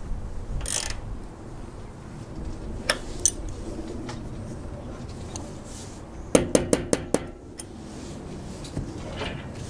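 Steel socket ratchet and socket clinking as they are handled, with a few scattered sharp clicks and a quick run of about six sharp metallic clicks a little past the middle.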